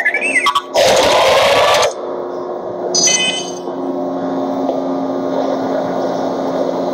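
R2-D2 sound effects: a warbling electronic beep at the start, a loud burst of hissing static about a second in, a short chirp of beeps around three seconds, then a steady low electronic hum as the hologram plays.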